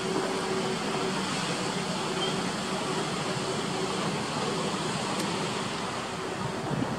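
Steady wash of surf breaking on a sandy beach, heard from a distance, with some wind on the microphone.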